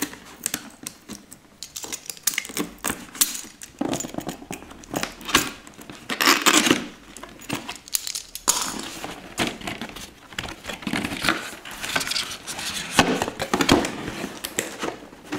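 A cardboard gaming-headset box being worked open by hand: irregular rustling and scraping of card with small clicks and knocks as the flaps are pried and pulled apart.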